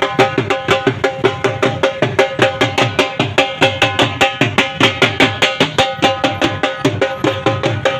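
Percussion-led music with a fast, even drumbeat and a steady melodic line over it.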